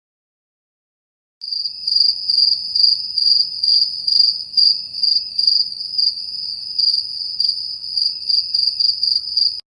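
Crickets chirping: a steady high trill that swells in pulses about twice a second. It begins after about a second and a half of silence and cuts off suddenly near the end.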